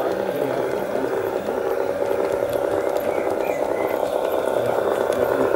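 G-scale model railcar running along the garden-railway track: a steady hum of its motor and gears with the rattle of its wheels on the rails.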